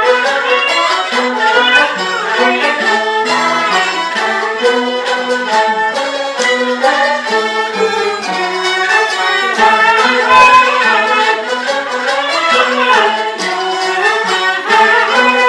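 Peking opera accompaniment led by a bowed jinghu fiddle, playing a busy instrumental passage of short, quickly changing notes with slides between them.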